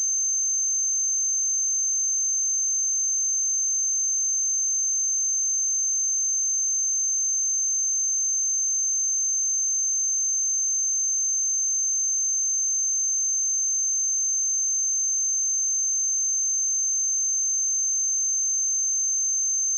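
A steady, pure 6276 Hz sine-wave test tone, high-pitched and unchanging, with no other sound.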